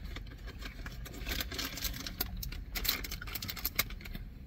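Fast-food packaging crinkling and clicking irregularly as it is handled, busiest in the middle.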